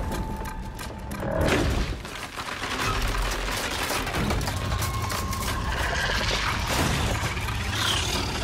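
TV-drama sound design: a deep continuous rumble that swells about a second and a half in, layered with a faint held tone and other noisy effects.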